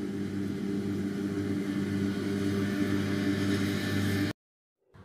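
Fendt 724 Vario tractor's six-cylinder diesel engine running steadily under load while it mows grass with a front-mounted disc mower. The sound cuts off suddenly a little over four seconds in.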